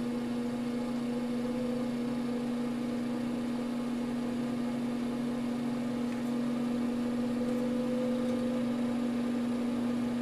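Two small all-metal fume extractor fans running together at their lowest speed: a steady motor hum with air rushing, one fan adding a slight purr from vibration.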